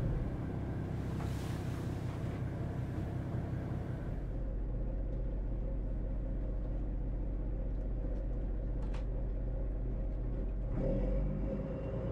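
A steel motor sailor's inboard engine running steadily: a low rumble with a steady hum.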